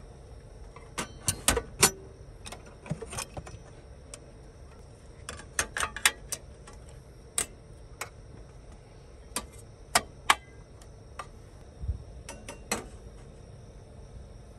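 Irregular light clicks and clacks of small hard objects being handled, some in quick clusters, over a faint steady background hiss.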